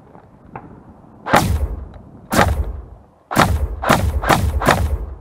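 Specna Arms G36 blowback airsoft electric rifle firing six single shots, each a sharp crack with the blowback bolt snapping; the first three come about a second apart, the last three faster.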